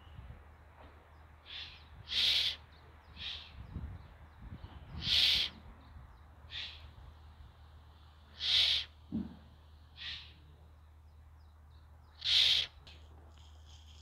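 An owl giving harsh, hissing screeches, four loud ones a few seconds apart with fainter ones between.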